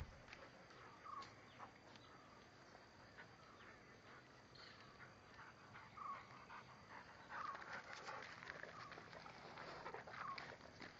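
Faint short bird-like calls, repeated every second or so. From about seven seconds in, crunching footsteps on pebbly dirt.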